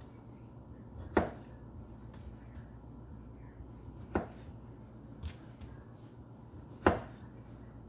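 Kitchen knife chopping against a cutting board: three sharp knocks a few seconds apart, with a fainter one between the last two.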